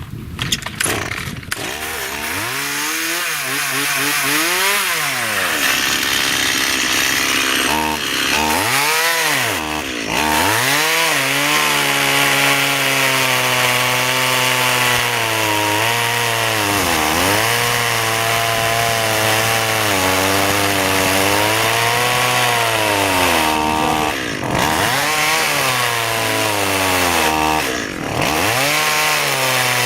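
Stihl MS 180 (018) two-stroke chainsaw comes up to speed in the first couple of seconds, then runs at full throttle cutting into a big hardwood shea trunk. Its pitch sags and recovers again and again as the chain bogs down in the cut, with several deep drops.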